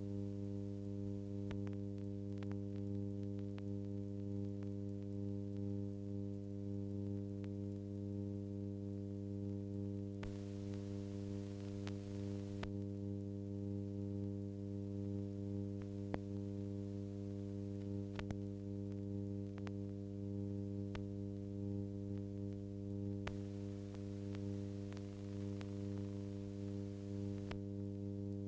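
Steady electrical hum with a stack of overtones and a few scattered faint clicks: the background noise of a silent film transfer that has no soundtrack.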